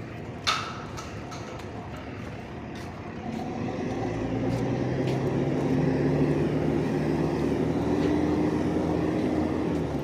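A heavy engine drones steadily, growing louder from about three seconds in, over outdoor background noise. A single sharp metallic clank sounds about half a second in.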